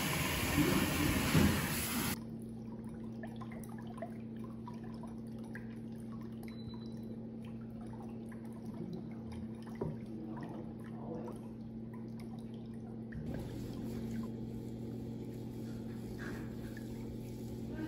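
Water running into a pedicure foot spa tub, cutting off about two seconds in. A low steady hum follows, with faint scattered small drips and handling sounds.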